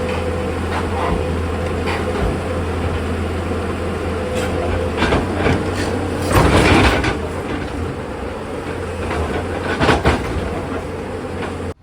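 Tata Hitachi excavator's diesel engine running steadily, with scattered metallic knocks and a louder clatter about six and a half seconds in. The sound cuts off suddenly near the end.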